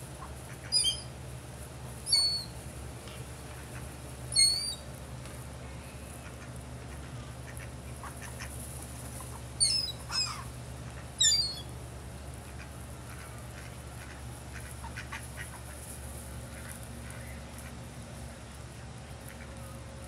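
Gulls giving short, sharp, high-pitched squawks that drop in pitch, six in all, in two bunches over the first dozen seconds, over a steady low background rumble.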